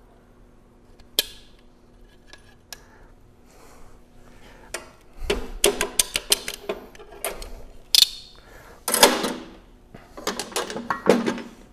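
Snap-ring pliers working a snap ring out of a screw compressor's shaft-seal bore, with a single sharp metallic click about a second in. From about halfway on, a run of clinks and clanks as steel hand tools are handled and set down on the bench.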